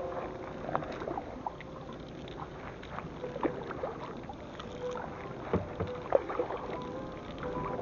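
Canoe paddling on the sea: irregular paddle strokes splashing and dripping in the water, with small knocks over a steady wash of moving water.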